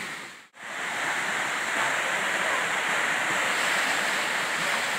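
Small jungle waterfall rushing steadily, an even hiss of falling water. The sound drops out briefly about half a second in, then the rush comes back.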